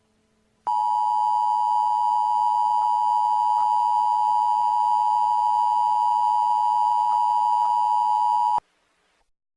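Emergency Alert System attention signal: a steady two-tone alarm near 1 kHz that starts suddenly, holds for about eight seconds, then cuts off.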